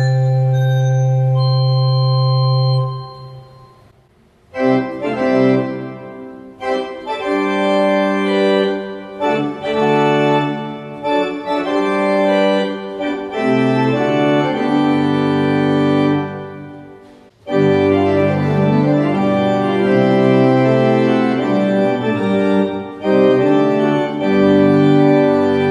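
Rieger pipe organ: a held chord on stopped flute 8', flautino 2' and quint flute 1 1/3' stops about three seconds in and dies away in the church's reverberation. Then chordal passages on Principal 8' with a four-rank mixture, and near the end a fuller registration of 8' and 4' stops with the mixture.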